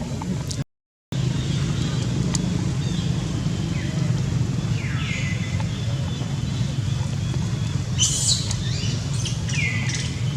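Baby monkey crying: a few short, high calls that fall in pitch, spaced several seconds apart, over a steady low hum. The sound cuts out completely for a moment about a second in.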